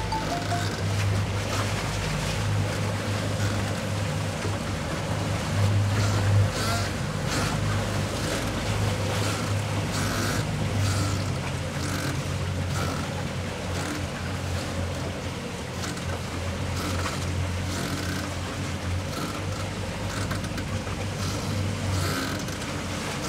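Towboat's engines running at low speed with a steady hum, and water washing along the hulls.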